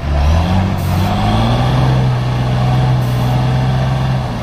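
Truck engine running, its pitch rising over the first second and a half, then holding steady.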